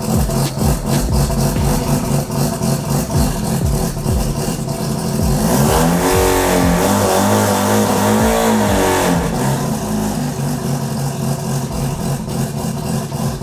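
Turbocharged two-rotor 13B rotary engine running with a choppy, uneven idle. From about five seconds in to about nine seconds in it is revved up and down several times, then drops back to the lumpy idle.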